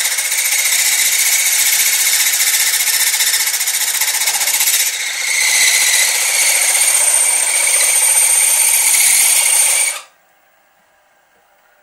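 Milling machine spindle turning a boring head through a model traction engine's cylinder block casting, taking the final cut to bring the cylinder bore to size. Steady machining noise with a high ring, a brief dip about five seconds in, then the machine stops suddenly near the end.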